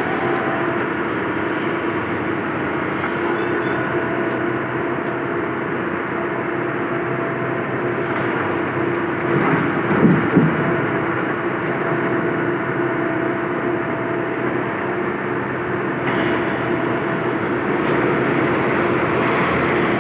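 Excavator engine running steadily under load, with a short clatter of knocks about halfway through.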